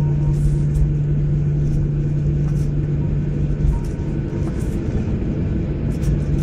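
Jet airliner cabin noise while taxiing after landing: a steady low rumble of the engines at taxi power and the wheels on the apron, with a steady low hum that weakens about halfway through and comes back near the end.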